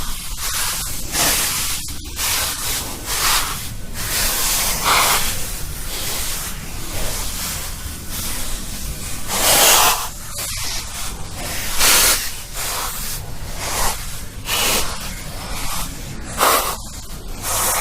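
Slow, heavy, creepy breathing, rough noisy breaths in and out following one another every second or two, the loudest about ten, twelve and seventeen seconds in, over a steady low rumble.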